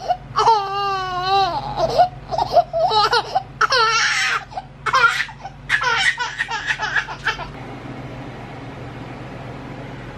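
High-pitched laughter and giggling, a long wavering call followed by quick bursts, stopping about seven and a half seconds in. After that only a steady low room hum remains.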